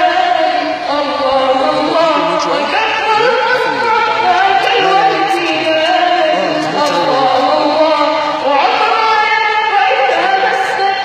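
A boy's solo voice singing a melodic religious praise chant into a microphone. It moves in long phrases of held, ornamented notes, with a short pause before a new phrase near the end.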